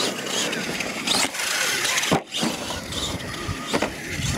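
R/C monster truck driving on dirt, its motor and drivetrain whining in several quick rising and falling bursts as the throttle is blipped.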